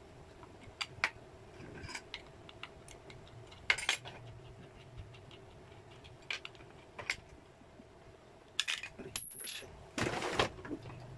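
Scattered light metallic clicks and clinks of a router bit and small tools being handled at the collet of a palm router, with no motor running. Near the end comes a louder stretch of rustling and knocking.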